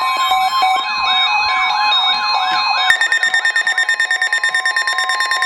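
Emergency alert receivers sounding at once for a blizzard and winter storm warning. A siren-like alert tone sweeps up and down about four times a second over a steady high tone. About three seconds in it switches to a steady, rapidly pulsing alarm beep.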